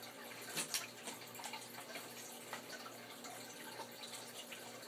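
Faint steady hiss with a few light clicks and rustles of someone moving about and handling things.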